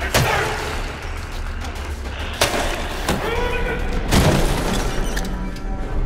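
Fight sounds: three heavy blows, near the start, about two and a half seconds in and about four seconds in, struck with a long wooden pole, with a man's strained cries between them, over low background music.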